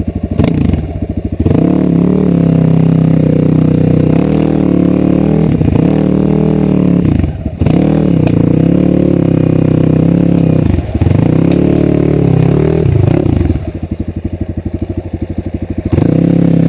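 Dirt bike engine under throttle, held at high revs in long pulls broken by brief sharp drops in revs, then easing off to a slow pulsing low-rev run before opening up again near the end.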